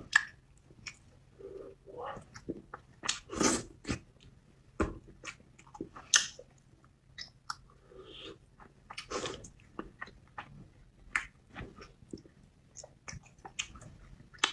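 A person chewing and biting food close to the microphone: irregular wet mouth clicks, smacks and light crunches with short pauses between them.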